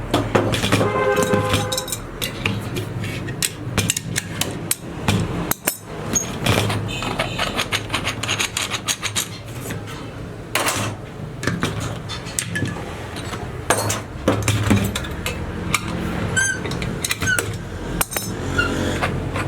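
Hammer striking metal brake-shoe work in a run of irregular sharp blows and taps.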